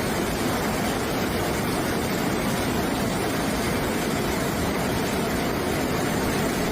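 Steady, loud rushing of fast-flowing floodwater.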